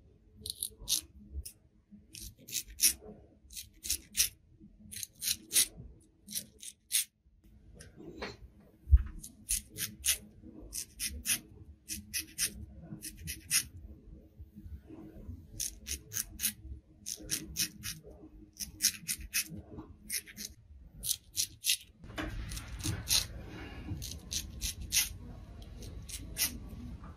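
Straight razor scraping stubble of about three days' growth from a lathered face in short repeated strokes, each a crisp rasp, sometimes several in quick succession. About 22 seconds in, a steady hiss joins underneath.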